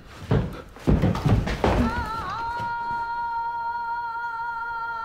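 A few dull thumps, then a single high note, sung or played, that wavers briefly and is then held steady.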